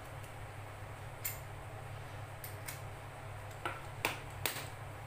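Several short, sharp clicks and taps of hard PVC pipe pieces being handled and knocked together, the loudest about four seconds in, over a steady low hum.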